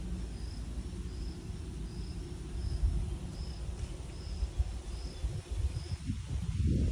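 Steady low hum of a honey bee colony around an open hive with a frame of bees lifted out, and an insect chirping in short high pulses a little faster than once a second.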